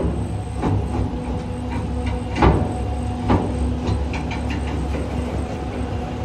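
Farm tractor engine running steadily under manoeuvring, with a few sharp knocks from the front loader gear, the loudest about two and a half seconds in.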